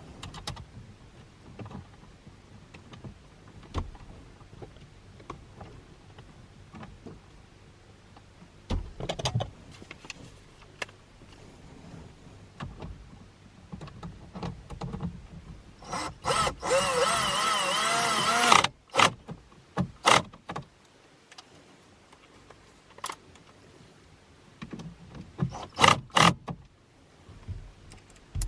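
Screws being driven back in to fix a car stereo head unit in the dash: scattered small clicks and taps of screws and tools against metal and plastic, and past the middle one run of a small electric motor, about two seconds, wavering in pitch, typical of a cordless screwdriver.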